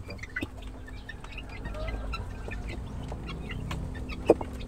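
A brood of 23-day-old chicks eating from a plastic trough feeder: soft peeps and clucks with many small ticks of beaks pecking, and one louder call about four seconds in.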